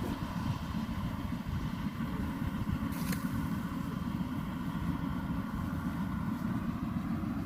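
Yanmar AW82V combine harvester's diesel engine running steadily under work, with a brief click about three seconds in.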